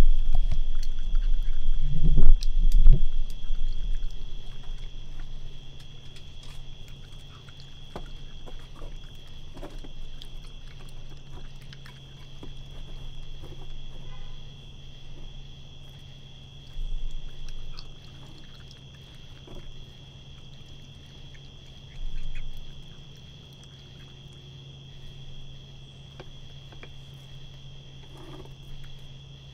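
Raccoon feeding, with scattered small clicks and smacks of chewing and handling food. There are loud low bumps in the first three seconds, then a steady low hum and a steady high-pitched drone throughout.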